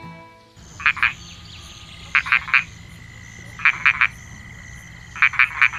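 Frogs croaking in quick runs of two to four croaks, a run about every second and a half, over a faint steady background hum.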